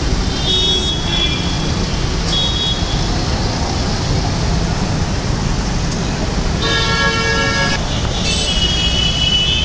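Steady road-traffic noise with vehicle horns honking several times: short high beeps about half a second in and again at about two and a half seconds, a longer, fuller honk of just over a second near seven seconds, and another high horn toward the end.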